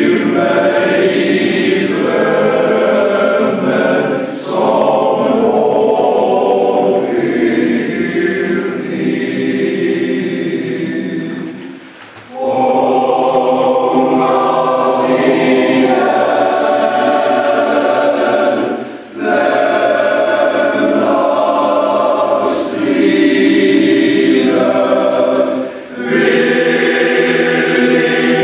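Men's choir singing in several-part harmony, in long phrases with short breaks between them, the deepest break about twelve seconds in.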